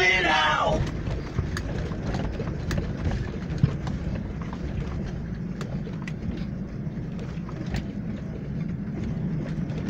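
A song's sung phrase with backing music dies away in the first second. After that, wind rumbles steadily against the microphone, with faint scattered clicks.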